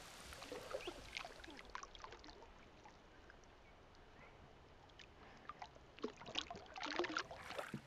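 Faint sloshing and trickling of water in a shallow waterhole, with a short cluster of louder small splashes about six to seven seconds in.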